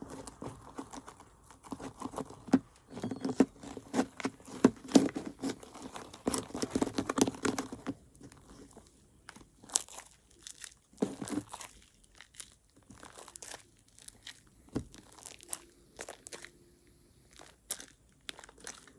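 Pink shaving-foam fluffy slime being squeezed and stretched by hand, giving a run of small wet crackles and pops, dense for the first half and sparser after that.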